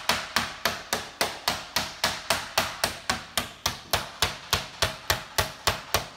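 Flat side of a meat mallet pounding a plastic-wrapped chicken breast on a plastic cutting board: a steady, even run of sharp strikes at about three to four a second, flattening the breast to an even thickness.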